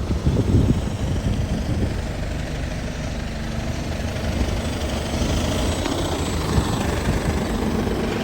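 Bus engine running with a steady low rumble, with a few knocks in the first second.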